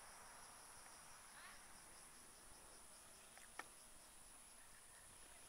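Faint forest insect chorus: a steady high buzz with a lower pulsing trill of several pulses a second. A single sharp click comes about three and a half seconds in.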